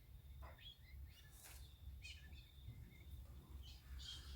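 Near silence: a low steady hum with faint bird chirps and a couple of faint ticks.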